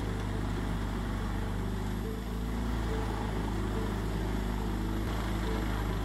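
Truck-mounted wood chipper running steadily under load as its crane feeds in branches: a constant engine drone with chipping noise over it, dipping briefly about two seconds in.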